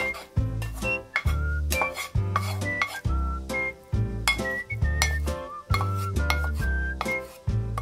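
Dishes and cutlery clinking in sharp clicks, over background music with a steady beat of about two low thuds a second.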